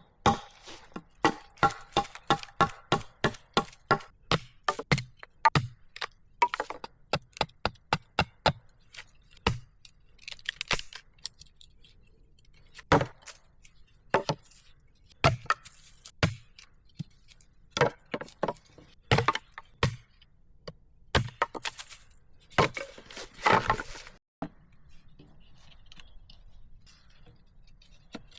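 Repeated chopping strikes into wood, fast and even at about four a second with a slight ringing at first, then slowing to single spaced blows. Between the blows there are a few short scraping, rustling sounds.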